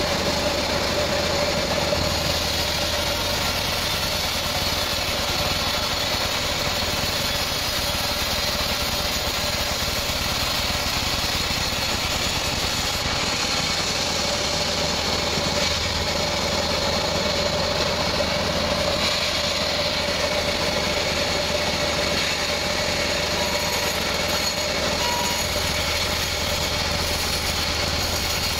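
Large log band saw running steadily while its blade saws through a teak log, a continuous drone with a steady high whine.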